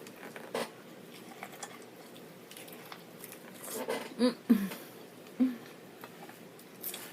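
Close-miked eating sounds of a person biting and chewing elote (Mexican corn on the cob): scattered small wet mouth clicks, with three short hummed vocal sounds a little after the middle.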